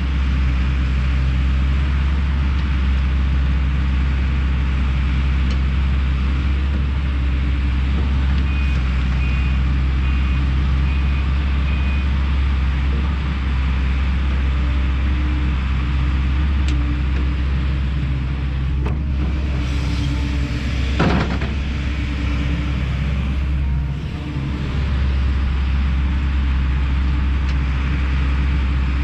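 Kobelco SK210 excavator's diesel engine running steadily as it works, with a short run of faint high beeps about a third of the way in and a brief sharp wavering squeal a little past two-thirds.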